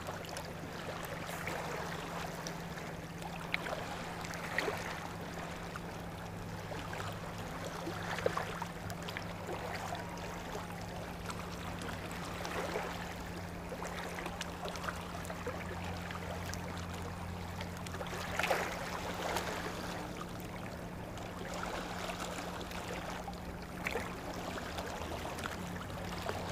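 Small waves lapping and trickling against a rocky shoreline, with a few louder splashes, over a steady low hum.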